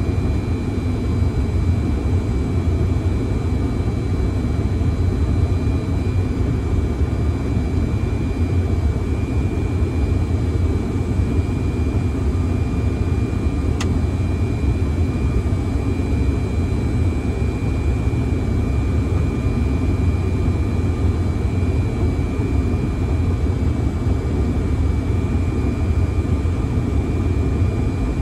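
Steady flight-deck noise of a Fokker 100 jet airliner on a stabilized final approach: a low rumble of airflow and engine noise with a thin steady whine above it. There is one faint tick about halfway through.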